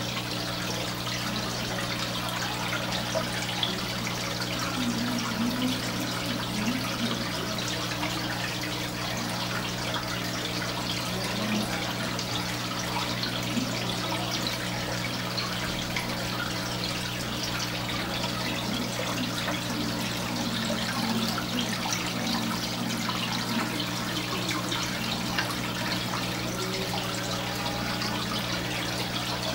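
Aquarium filter running: a steady sound of moving water over a constant low electrical hum.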